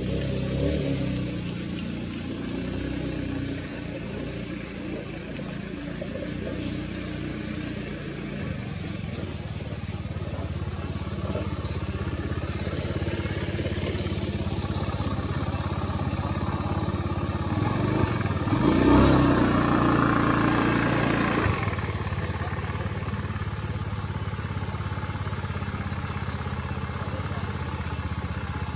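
A motor engine running with a steady low hum. It swells to its loudest about two-thirds of the way through, then drops back suddenly.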